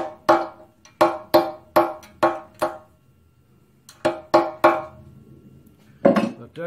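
Ball-peen hammer tapping on metal at a bolt hole in a McCormick-Deering engine's cast-iron block, knocking loose the drilled-out remains of a broken fuel pump bolt. About seven sharp, ringing taps, a pause, then three more, with a louder handling noise near the end.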